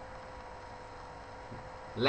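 Room tone: a low steady hiss with a faint electrical hum underneath.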